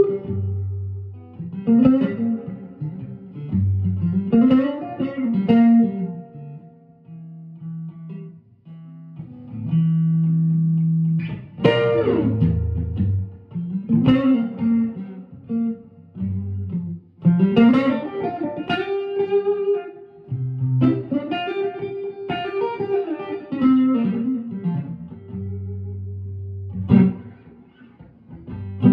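Electric guitar played through a pair of tube amps, a 1964 Fender Vibroverb and a Longhorn Amps Tumbleweed Special: picked phrases and chords with string bends over held low notes.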